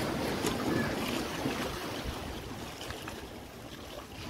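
Sea waves washing against breakwater rocks, with wind on the microphone: a steady rushing wash.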